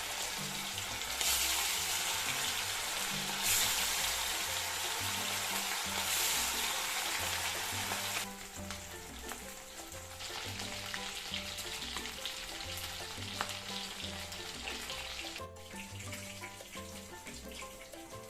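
Food sizzling as it fries in a pan, loud for the first eight seconds, then quieter, and stopping about fifteen seconds in.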